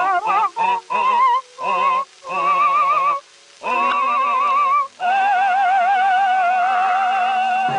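Operatic cartoon singing voice with a heavy, wobbling vibrato: a run of short separate notes, then one long held note.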